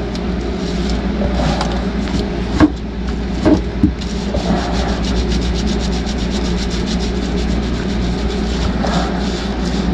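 Fiberglass laminating roller being worked over resin-wet glass cloth to roll out a trapped air bubble: a few knocks, then a rapid fine clicking from about four seconds in, over a steady low hum.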